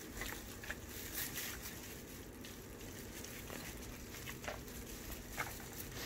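A spoon stirring and folding a thick, creamy shrimp stuffing in a glass mixing bowl: soft, irregular wet clicks and scrapes of the spoon against the glass.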